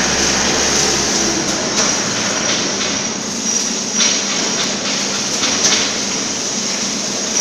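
Steady loud hiss of workshop machinery, with a few short knocks.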